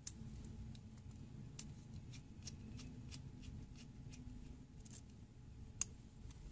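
Faint handling sounds of a small flat screwdriver tightening wires into a plastic screw terminal block: scattered light clicks and scrapes, with one sharper tick near the end.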